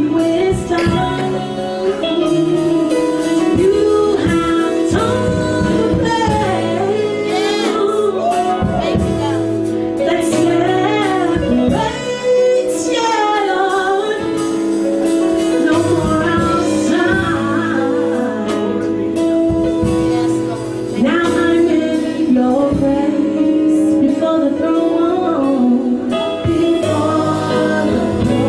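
Live gospel praise and worship music: a woman singing with wavering, gliding runs over sustained band chords and drum hits.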